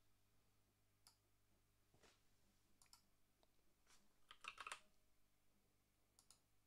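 Faint computer keyboard keystrokes and scattered clicks, with a quick run of keystrokes about four and a half seconds in as a short search word is typed.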